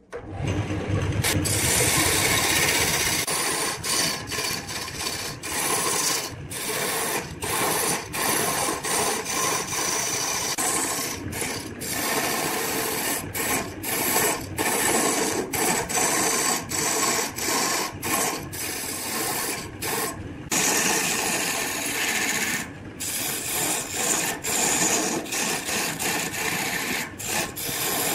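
A turning tool cutting a large wooden log blank spinning on a wood lathe: a continuous rough shaving and scraping noise, broken by many brief gaps as the cut stops and starts, while the blank is roughed into shape.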